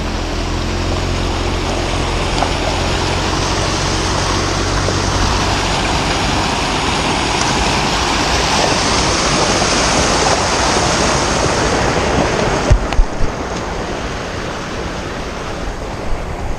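Creek water rushing over a small rocky drop, growing louder as the horse wades close beside it and easing off as the horse climbs out of the crossing. A few sharp knocks come about two-thirds of the way through, with a couple more near the end.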